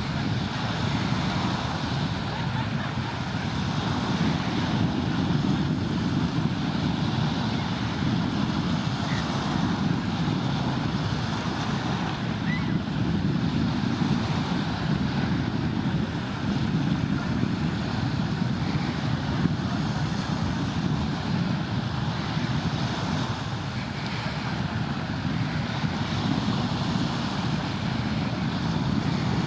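Steady wind rumbling on the camera microphone, mixed with the wash of the sea at the shore.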